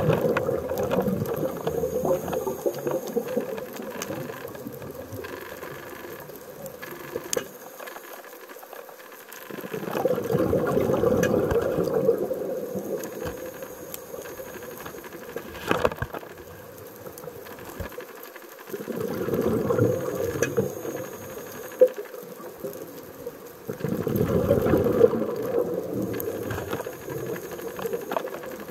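A scuba diver's regulator exhaust heard underwater: bubbling exhalations rise in four swells, each lasting two to three seconds, several seconds apart, with quieter hiss between breaths and a few sharp clicks.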